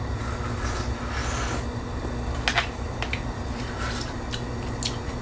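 Eating rice and innards out of a steamed crab's top shell: a short slurp near the start, then a few light clicks and scrapes of a wooden spoon and chopsticks against the shell, over a steady low hum.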